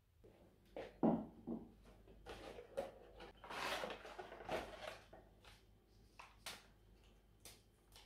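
Paper tea-bag sachet rustling and being torn open, loudest in the middle. Around it come a few knocks and light clicks of handling on a wooden tabletop, the sharpest knock about a second in.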